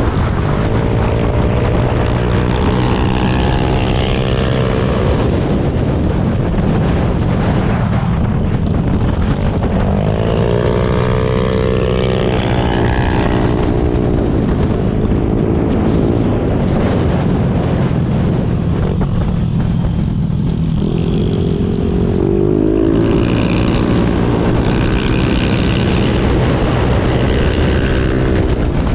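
Motorcycle engine running while riding, its pitch rising and falling several times as the bike speeds up and eases off, over a steady rush of wind noise.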